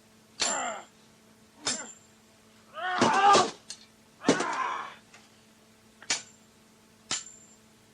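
Staged combat sound effect: sharp metallic strikes about once a second, several with a brief high ring, like swords clashing. Two strained, voice-like cries come in the middle.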